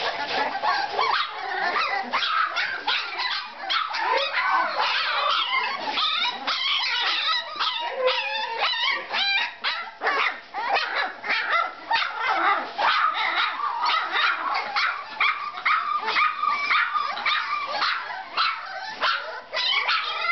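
A litter of three-week-old Ca de Bou (Mallorca mastiff) puppies whining and yelping, many high-pitched cries overlapping without a pause.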